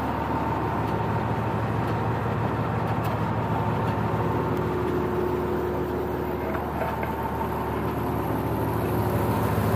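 Urea (diesel exhaust fluid) being pumped through a dispenser nozzle into a truck's tank: a steady mechanical hum over a low diesel engine idle.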